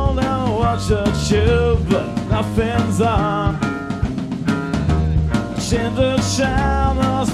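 A song with a singing voice over a band, the drums keeping a steady beat.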